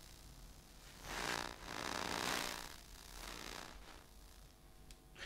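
An iPhone's electromagnetic emissions picked up by an Elektrosluch 3+ induction listener and heard as noise: two swelling hissy rushes, about a second in and two seconds in, then a weaker one, over a faint steady hum.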